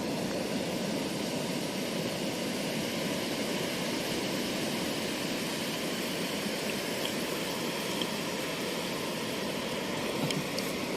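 Steady, even roar of ocean surf breaking on the reef.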